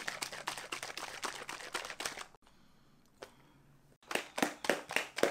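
Bottle of protein shake shaken hard to mix in powder that has settled unmixed at the bottom: a fast run of knocks and rattles for about two seconds, a pause of about a second and a half with a single click, then shaking again.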